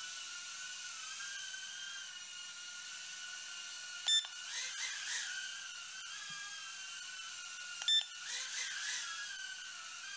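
FuryBee F36 mini quadcopter flying, its small motors and propellers giving a high whine that wavers in pitch as the throttle changes. Two short, loud beeps cut in about four seconds apart, each followed by a brief wobble in the whine.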